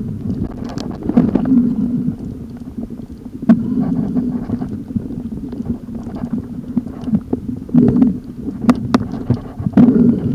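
Underwater noise heard through a camera housing on a breath-hold spearfishing dive: a steady low rumble of moving water that swells every second or two, with scattered sharp clicks and knocks.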